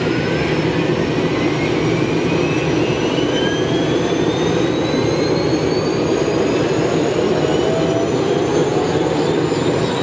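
Helicopter turbine engine spooling up: a steady, loud rushing noise with several whines climbing slowly in pitch throughout. A fast fluttering comes in high up near the end.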